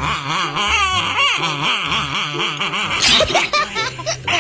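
Repeated high, wavering whining cries over background music with a steady bass line, with a short noisy burst and a few quick rising yelps about three seconds in.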